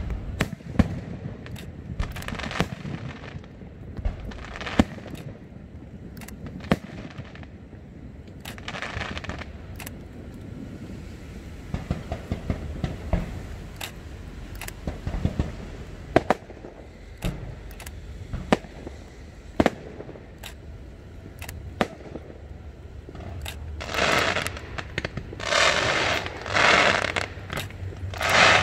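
Fireworks going off: single sharp bangs every second or two, then, about three-quarters of the way through, several bursts of dense crackling, each lasting about a second.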